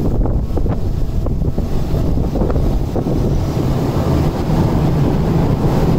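Tokyu Setagaya Line 300 series light-rail car passing close by through a level crossing, with a low rumble building about four seconds in. Wind buffets the microphone throughout.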